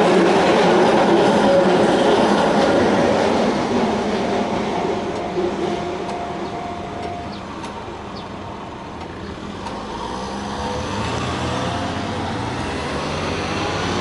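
Keihan 600-series electric train running over the level crossing, its wheels rumbling on the rails and fading away over the first few seconds, with a brief thin whine around five seconds in. In the last few seconds a small vehicle's engine pulls away, rising in pitch.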